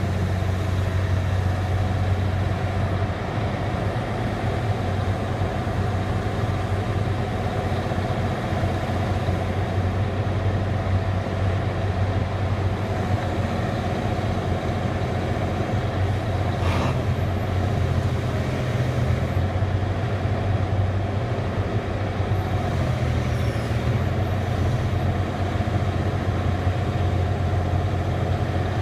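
Liebherr 964 crawler excavator's diesel engine running steadily as the machine slews its upper structure and moves its boom, with one brief click partway through.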